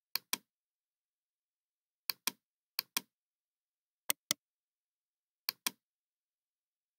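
Computer mouse button clicked five times, a second or more apart, each click a quick double tick of press and release.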